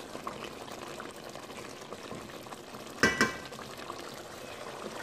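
Thick chicken korma sauce bubbling and popping as it simmers in a stainless steel pot, with a wooden spoon stirring it. About three seconds in comes a sharp double knock with a metallic ring, the loudest sound.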